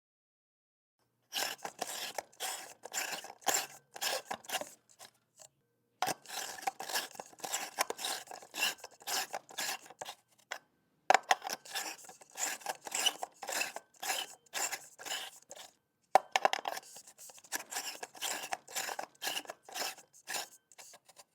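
Light bulb being screwed into a socket: its threaded metal base turning in the socket threads in rapid short scraping strokes, in four runs with brief pauses between.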